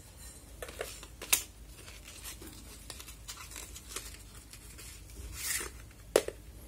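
Cardboard sleeve packaging of a fluorescent tube being handled, rustling and crinkling, with scattered light knocks. Two sharp clicks stand out, one just over a second in and another about six seconds in.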